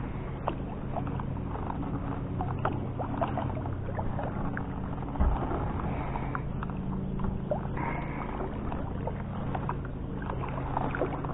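Kayak paddle strokes: the two-bladed paddle dipping and pulling through calm water, with small splashes and drips, over a low steady hum. A dull thump about five seconds in.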